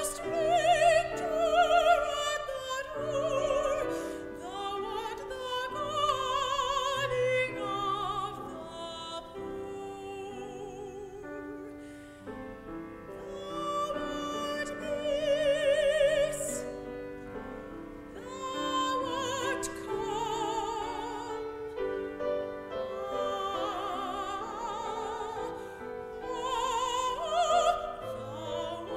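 A woman singing a solo in classical, operatic style, held notes with a wide vibrato, over piano accompaniment.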